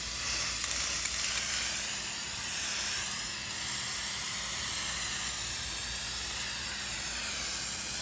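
Aerosol spray paint can spraying in one long, unbroken hiss.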